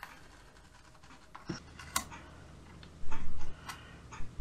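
Adhesive vinyl skin being lifted and re-pressed on a DJI Mini 2 drone's plastic body: small taps and scratches, with a louder scraping stretch of about half a second roughly three seconds in.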